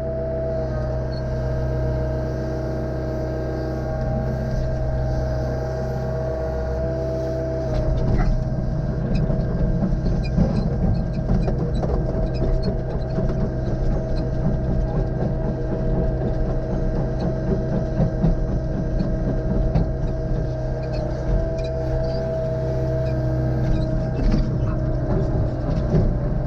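Excavator's diesel engine running steadily with a high held tone. About eight seconds in it turns louder and rougher under load, with irregular cracking on top, as the machine works at splitting firewood.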